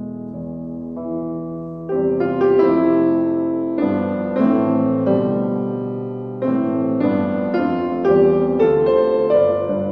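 Background piano music: slow, gentle chords, soft at first and growing fuller about two seconds in.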